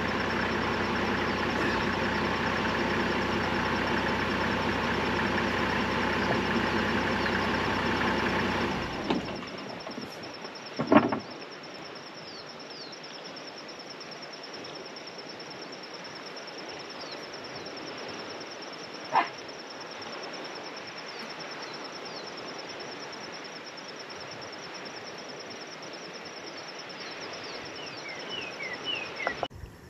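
A vehicle engine running steadily, stopping about nine seconds in. After it, a steady high insect drone and a few short bird chirps remain, with a loud short thump at about eleven seconds.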